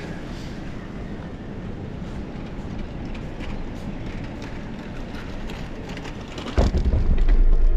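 Electric skateboard rolling, its wheels rumbling with a scatter of small clicks and rattles. About six and a half seconds in, a much louder low rumble sets in as it rolls onto the wooden plank decking of a pier.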